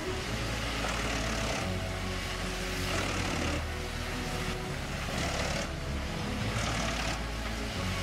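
Truck-mounted drum wood chipper running under load, its spiked feed rollers drawing a log into the drum, with a steady low engine hum and repeated surges of crunching chipping noise every second or so as the wood is cut.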